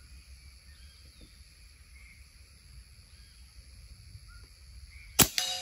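A 9 mm (.35 calibre) AZTK Kong PCP air rifle, moderated with four baffles, fires one shot about five seconds in: a single sharp loud crack, followed a moment later by a weaker crack and a short ringing tone. Before the shot only a steady insect buzz is heard.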